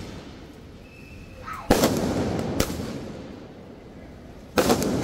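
Aerial fireworks bursting overhead: a sharp bang about one and a half seconds in, another about a second later, and a third near the end made of several quick pops. Each bang trails off in a rolling echo.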